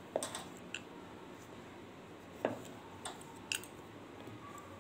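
A wooden rolling pin knocking and clicking lightly on a wooden board as small pieces of dough are rolled out: about five short, scattered taps.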